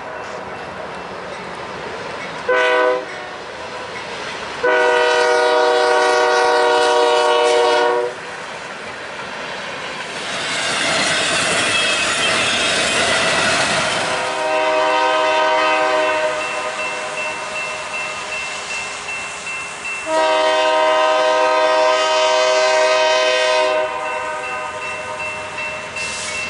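Locomotive air horn sounding repeated blasts: a short one about two and a half seconds in, a long one from about five to eight seconds, then more long blasts from about fifteen seconds on. Between them, around ten to fourteen seconds, the train's passing rumble of wheels on rail is loudest, and a thin steady high tone sounds from about sixteen seconds in.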